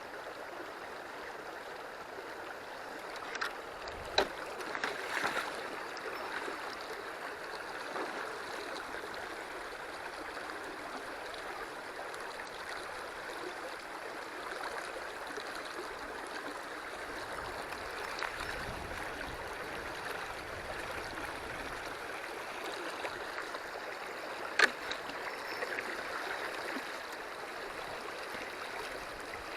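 River water flowing steadily over the stream bed. A few sharp clicks or knocks sound about four seconds in, and one louder click comes near the end.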